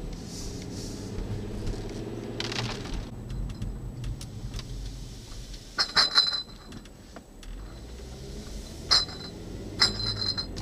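Car cabin noise while driving slowly: a steady low engine and road hum, broken in the second half by a few sharp, bright metallic jingling clicks, the loudest about six seconds in.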